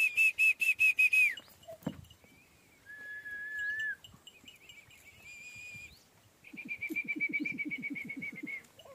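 High, clear whistled notes. A loud, fast pulsing trill ends about a second in, two single held whistles follow in the middle, and another fast trill of about eight notes a second comes near the end.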